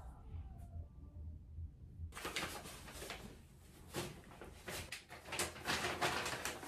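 Kraft paper bags being handled, with rustling, crinkling and sharp paper clicks starting suddenly about two seconds in. Before that there is only a low hum.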